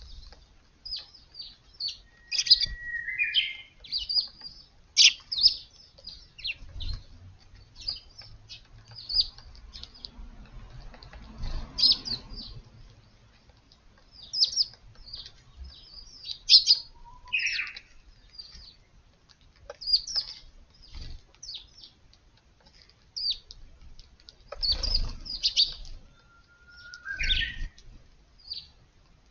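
Eurasian tree sparrows chirping over and over in short high chirps. Three times a Japanese bush warbler sings its 'hoo-hokekyo' song, a held whistle followed by a quick rising flourish.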